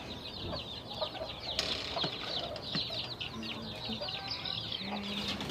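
A brood of baby chicks peeping continuously, many short high falling chirps overlapping, with a brief rustle about one and a half seconds in.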